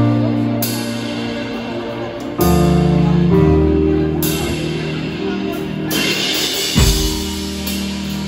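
Live rock band playing: electric guitar chords ringing over bass guitar and drum kit. Cymbal crashes come about two and a half seconds in and again around six seconds.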